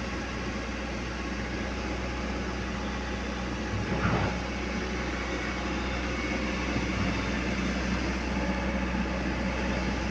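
Heavy diesel engine running steadily, with a brief louder knock about four seconds in.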